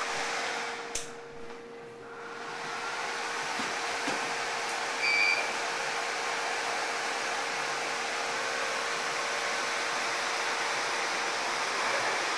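Epilog laser engraver running, its fans giving a steady rushing hiss with a low steady hum. A click about a second in, after which the noise dips briefly and comes back. A short high beep about five seconds in.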